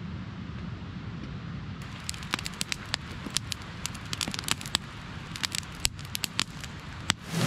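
Wood campfire crackling, with irregular sharp snaps several times a second starting about two seconds in, over a steady low rumble.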